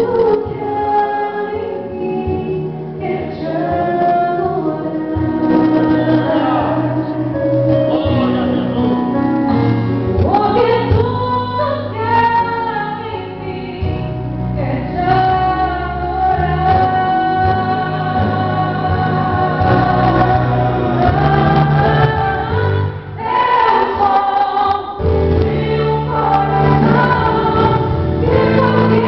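A female voice singing a Brazilian Portuguese gospel ballad, with choir-like backing vocals over an instrumental accompaniment.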